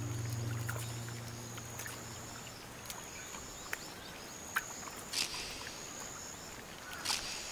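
Faint mudflat ambience: a high thin steady tone that comes and goes, with a handful of scattered sharp clicks and ticks, the loudest about five and seven seconds in. A low hum fades out over the first two seconds or so.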